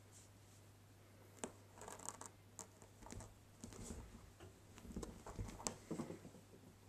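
Kittens scrambling over and into a duvet: faint fabric rustling and small claw clicks in scattered bursts, starting about a second and a half in and dying away near the end. A low steady hum lies under it.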